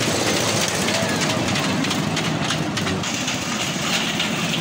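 Small amusement-ride train rolling on its circular track, a steady rumble with the wheels clicking and clattering on the rails.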